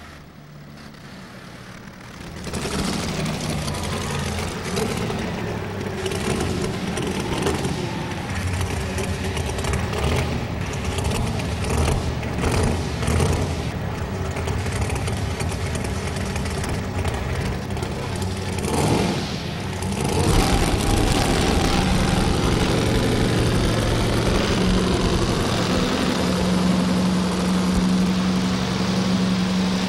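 Engine of a Chevrolet 4x4 modified pulling truck firing up after starter trouble: the sound comes in abruptly a couple of seconds in, then runs loud and steady. It gets louder, with a strong steady hum, about two-thirds of the way through.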